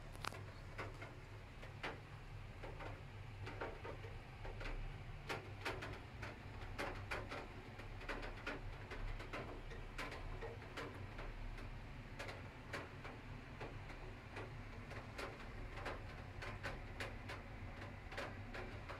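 Raindrops tapping irregularly on the window glass and sill, several ticks a second, heard from indoors through the closed window over a low steady rumble.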